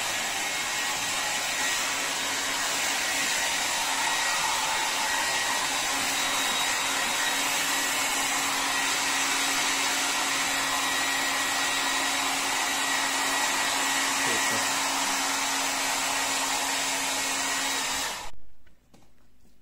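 Electric hair dryer running steadily: a constant rush of air over a low motor hum. It is switched off abruptly near the end.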